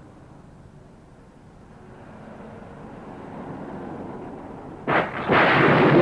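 Low rumbling noise that slowly grows louder, then a sudden loud noisy burst about five seconds in, which carries on at full strength.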